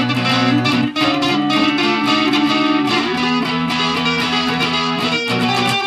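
Electric guitar music: a loud, continuous riff of sustained notes.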